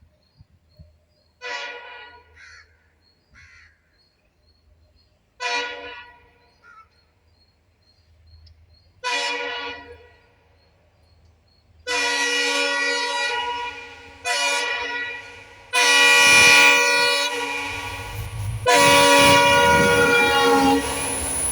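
Horns of twin WDP4 diesel locomotives honking repeatedly. Three short blasts come about four seconds apart, then four long, loud blasts from about twelve seconds in. Low train running noise builds under the last blasts.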